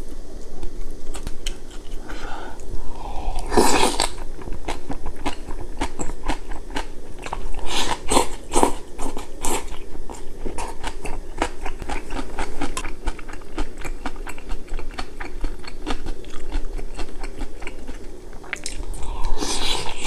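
Close-miked eating: chewing and crunching of noodles and fresh kimchi, with wet mouth clicks throughout. Louder bursts about four seconds in, around eight to nine seconds, and at the end, the last as broth is sipped from a spoon.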